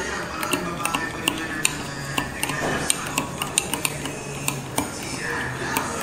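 Metal spoon stirring halo-halo in a tall glass, quick irregular clinks of the spoon against the glass, a few a second, as it churns the shaved ice.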